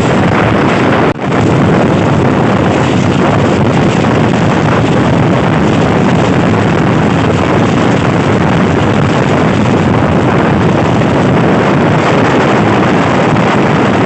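Passenger train running fast, heard from on board: a loud, steady rush of wind and running noise, with a brief dropout about a second in.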